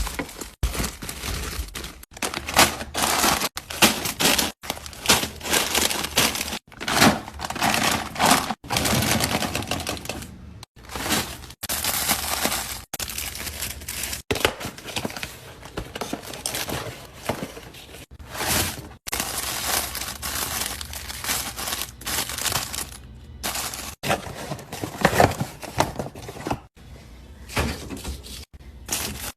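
Food packaging and plastic containers handled in a string of short takes while a fridge and pantry are restocked: rustling, with many sharp clicks and knocks of lids, jars and items set down. Each take cuts off abruptly into the next.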